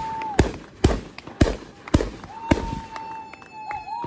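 Consumer fireworks going off: a string of about five sharp bangs roughly half a second apart, with a steady high whistle from a whistling firework that cuts out just after the start and returns about two seconds in.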